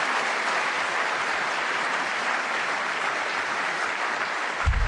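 Conference audience applauding: a steady wash of many hands clapping that slowly eases, with a single dull low thump near the end.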